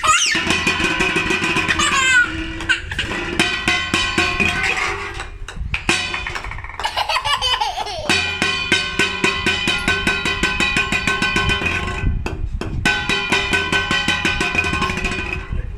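Playful cartoon-style music: a fast, even ticking pulse under held tones. Sliding pitch glides come at the very start and again about halfway through, and the music breaks off briefly a few times.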